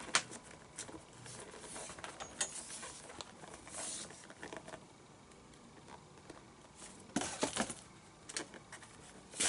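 Leather glove lace being pulled and worked through the lace holes of a baseball glove's fingertips: soft rustling with scattered clicks from the lace and lacing needle, and a quick run of clicks about seven seconds in.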